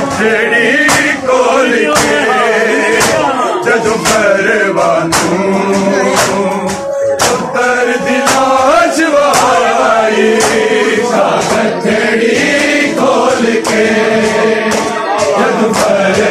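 A crowd of men chanting a Punjabi noha together, with sharp chest-beating (matam) slaps keeping time about once a second.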